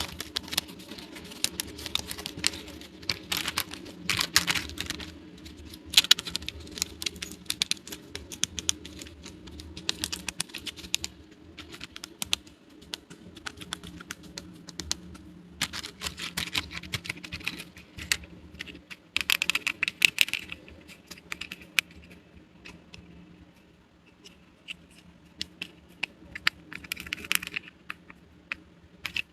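Small plastic miniature toy pieces being handled and unpacked: many quick, irregular light clicks and taps, with a few denser flurries.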